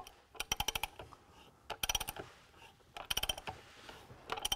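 Ratchet wrench clicking in four short runs of rapid clicks, a little over a second apart, as a bolt is tightened into a T-nut in soft pine, drawing the T-nut down into the wood.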